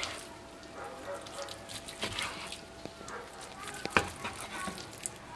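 A knife slicing boiled beef tongue on a wooden cutting board, with small taps of the blade on the board and soft handling of the meat by gloved hands. A sharper knock comes about four seconds in.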